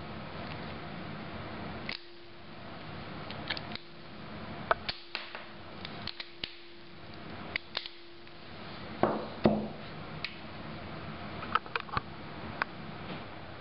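Scattered sharp metallic clicks and clacks from a Webley Mark VI revolver with a .22 single-shot conversion being handled, with two heavier knocks about nine seconds in and a few more clicks near the end.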